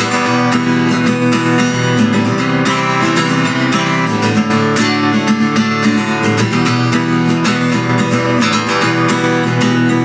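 Acoustic guitar strummed in a steady rhythm, playing chords in an instrumental passage of the song without singing.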